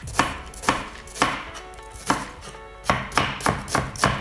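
Kitchen knife slicing through half an onion on a wooden cutting board. Each cut ends in a knock on the board, about two a second at first and quicker in the second half.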